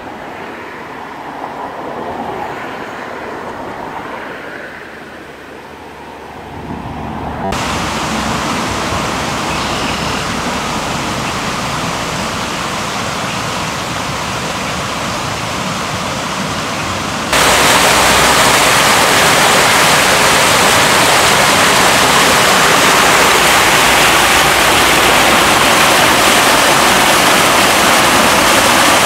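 Steady rush of fast-flowing floodwater. It is quieter and uneven for the first few seconds, then grows much louder in two sudden jumps, about 7 and 17 seconds in.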